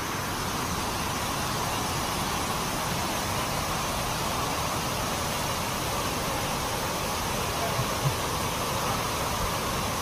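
Charpa waterfall's water rushing over the rocks: a steady, even roar with no change in level.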